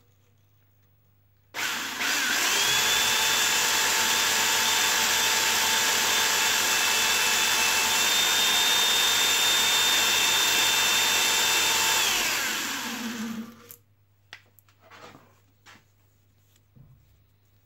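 Power drill spinning a spring-loaded cylinder hone inside the worn bore of a tractor clutch pedal, honing it out. It spins up about a second and a half in, runs steadily for about ten seconds, then winds down and stops, and a few light knocks follow.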